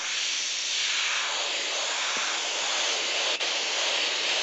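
Double-action airbrush hissing steadily with its air running continuously while paint is fed in soft shading strokes. There is a brief tick a little over three seconds in.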